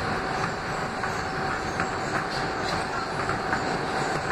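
R160 subway train running through a tunnel, heard from inside the car: a steady rumble of wheels on rail, with scattered clicks from the track and a thin steady tone above it.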